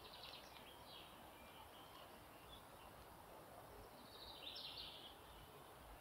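Faint birdsong of small birds: a few short high chirps in the first second and a quick cluster of chirps about four to five seconds in, over a faint steady hiss.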